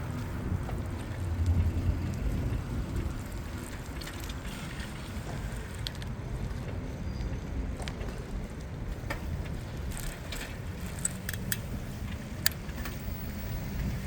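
Street sound heard from a moving bicycle: a steady low rumble of wind and tyres on the microphone, with a few short sharp clicks in the second half.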